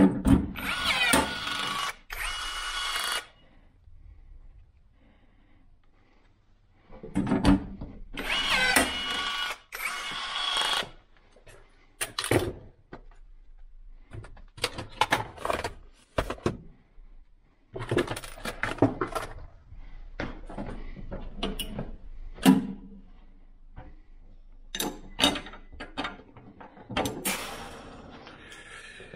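Cordless drill driving screws to fix a hasp: two runs of about three seconds each, near the start and about eight seconds in, its motor whine rising as it spins up. After them come scattered knocks and clatter of tools being handled.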